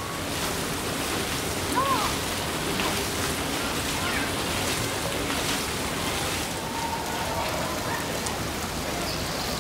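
Water pouring from splash-pad fountains and splashing into a shallow pool, a steady rushing hiss like rain.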